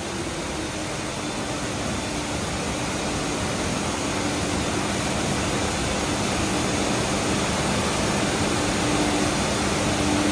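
Steady rushing machinery noise with a faint low hum, slowly growing louder.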